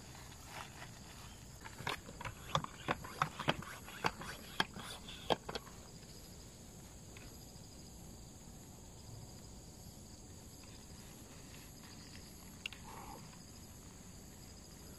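Footsteps crunching on dry cut grass and mulch, a quick irregular run of sharp crackling steps in the first half that then stops, over a steady high-pitched hum.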